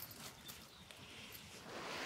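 Faint, light clinks of steel nails as a hand picks them from a small pile on dry leaves, with soft rustling.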